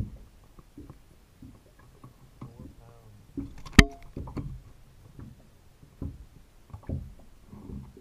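Scattered thumps and knocks on a boat as a largemouth bass is handled, with one sharp knock a little before halfway through.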